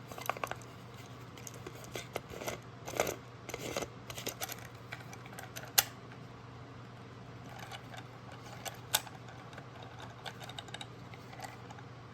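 Light clicks and scrapes of small metal parts being handled and screwed together by hand, with one sharper click about six seconds in, over a faint steady low hum.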